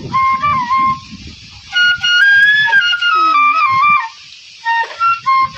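Bamboo flute (bashi) playing a Bengali folk melody as a ringtone tune, its notes stepping up and down, over repeated low drum strokes.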